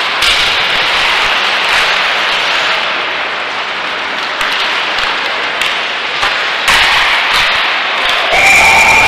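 Ice hockey play on the rink: skates scraping the ice, with sharp clacks of sticks and puck and knocks against the boards. Near the end a whistle blows, stopping play.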